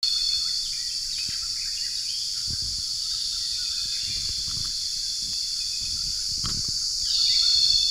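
Tropical forest ambience: a steady, high insect drone with scattered short bird chirps, the drone growing slightly louder near the end.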